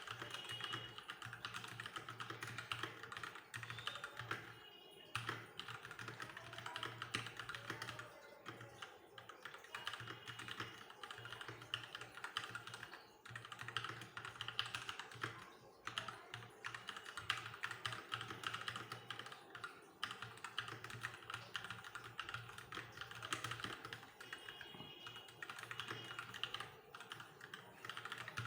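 Fast, continuous typing on a Keychron wireless mechanical keyboard, a steady rapid clatter of key clicks with a few brief pauses, around 5 s and again around 13 and 16 s.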